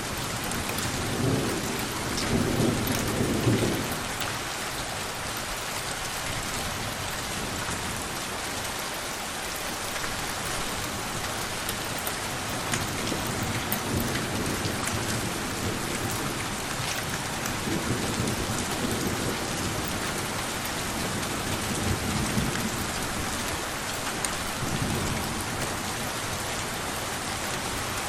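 Steady rain falling, with low rolls of distant thunder at intervals; the strongest rumbles about two to three seconds in.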